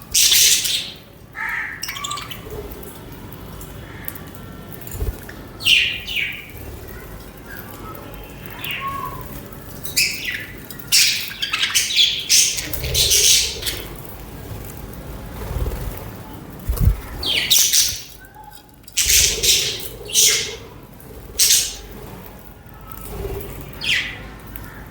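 Budgerigars chirping and chattering: strings of short, high chirps mixed with harsher squawks, coming in irregular bursts with short pauses between.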